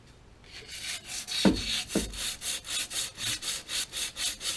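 Hand saw cutting with quick, even back-and-forth strokes, about four a second, starting about half a second in. Two dull thumps come early in the cutting.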